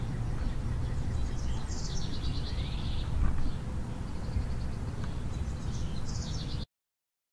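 A songbird sings twice, each time a quick run of rapidly repeated high notes, over a steady low rumble of outdoor background noise. The sound cuts off to silence near the end.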